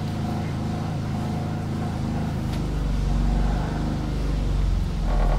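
Fischer Panda marine diesel generator running down after being switched off: its steady note holds for about two seconds, then falls in pitch while a low rumble builds as the engine slows to a stop.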